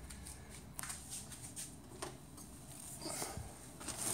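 Faint rustling with scattered soft clicks: handling noise of a handheld camera being moved, with fabric brushing.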